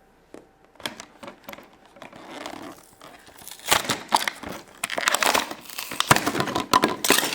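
Plastic packaging crinkling and rustling, with small clicks and snaps of plastic pieces, as small toy accessories are handled and unwrapped. It gets louder and busier about halfway through.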